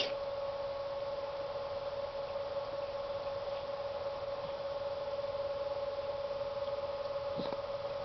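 A pet's short, sharp cough as she tries to clear her throat, right at the start, and a faint, lower one near the end. In between, a steady electrical hum with hiss.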